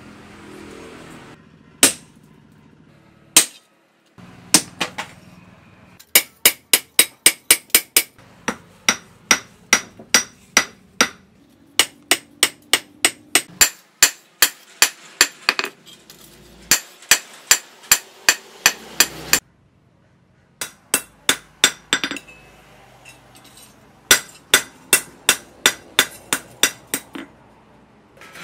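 Hammer blows on saw-disc steel on an anvil, each strike with a bright metallic ring. They come in runs of quick blows, about four or five a second, with short pauses between the runs.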